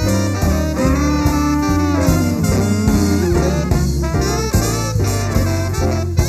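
A jazz/swing band's horn section of trombone, trumpet and saxophone plays over drums and bass, with a steady beat.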